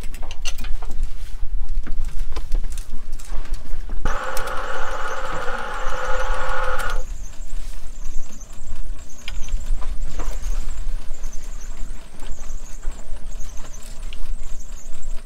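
Working noise on a cod jigging boat's deck: knocks and clatter over a steady low rumble, and about four seconds in a loud squeal that lasts about three seconds, then stops.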